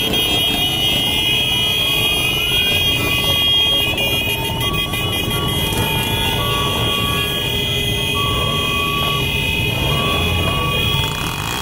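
A crowd of motorcycles with engines running, under loud, continuous horn and siren-like tones. A rising siren-like sweep sounds near the start, followed by a string of short beeping tones at changing pitches.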